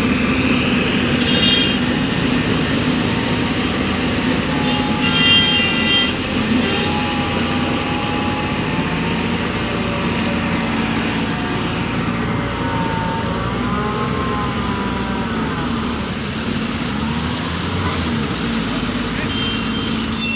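Heavy diesel machinery engine running steadily, with two short high tones about a second and about five seconds in, and indistinct voices.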